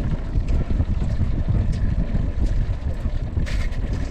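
Wind buffeting the microphone on a small open boat at sea, a steady, fluctuating low rumble, while a pot is hauled up over the side by hand; a brief hissing splash-like noise about three and a half seconds in.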